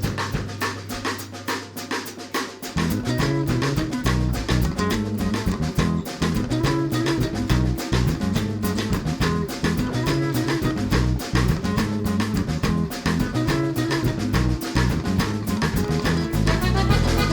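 Background music with a steady drum-kit beat; a fuller band with bass comes in about three seconds in.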